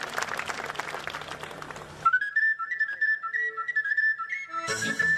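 Band music with applause cuts off about two seconds in, leaving a frula (Serbian shepherd's flute) playing a solo: a high, whistle-like melody with quick trills and ornaments. Near the end the band comes back in with drums behind it.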